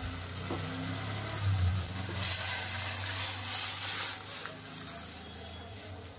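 Hot oil sizzling in a wok with fried onions and dried red chillies, then boiled red lentils poured into it, the hiss growing louder and turning to bubbling. A steady low hum runs underneath.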